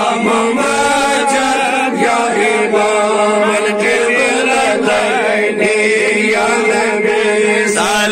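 A group of men singing a devotional Salaam (salutation to the Prophet) together in a chant, led by a voice on a handheld microphone. The singing is continuous and steady, with no pauses.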